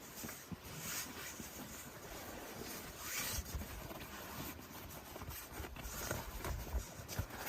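Irregular rustling with scattered soft low knocks.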